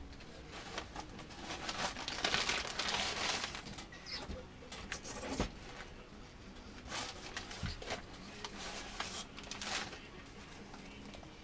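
Rustling and crinkling of packing material being handled in a shipping box, loudest about two to three seconds in, with scattered light clicks and scrapes.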